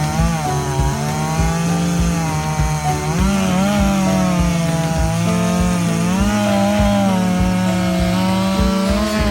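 Chainsaw cutting into an oak log, running at high speed, its pitch sagging and picking back up as the chain bites into the wood.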